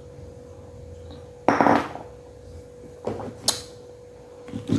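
Handling food and dishes at a meal: a short loud rustle-like burst about one and a half seconds in, then a few knocks and clicks, over a faint steady hum.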